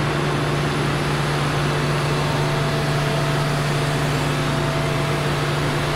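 Combine's diesel engine running at a steady speed, a constant low hum with even overtones, while the powered grain tank covers fold closed.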